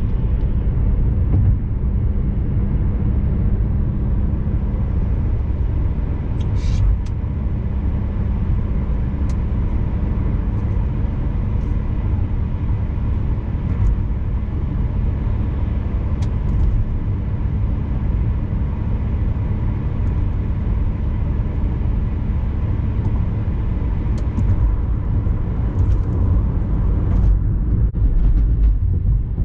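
2006 Toyota Matrix on the move: a steady low rumble of engine and tyres on the road, with a few faint clicks.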